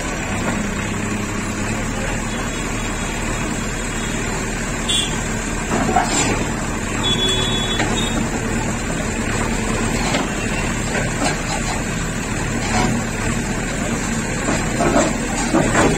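JCB backhoe loader's diesel engine running steadily while its bucket works, with occasional knocks and clatter as concrete footpath slabs are broken up.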